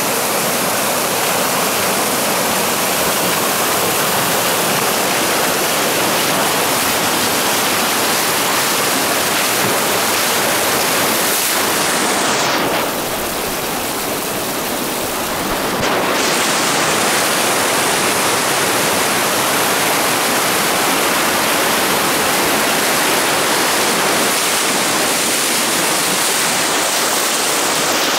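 Fast-flowing river water rushing and churning around a person's feet, a loud, steady rush. About halfway through it turns duller for a few seconds, then comes back full.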